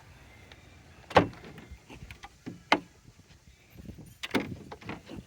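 Vehicle door clunks: a sharp knock about a second in, another near three seconds, and a few quick knocks just after four seconds.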